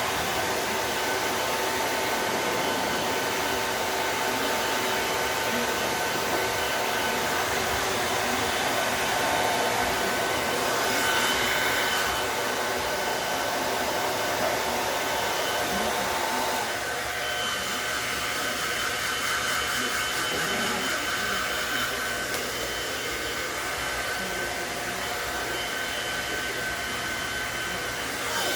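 Electric pet dryer blowing air into a drying room for a puppy after its bath, a steady whir with a faint whine in it. About two-thirds of the way through the whine changes and the sound gets a little quieter.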